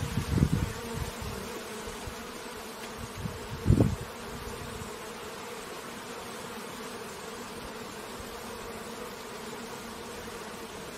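Honeybees buzzing at a beehive: a steady, even hum of many bees, with a couple of brief louder low swells near the start and about four seconds in.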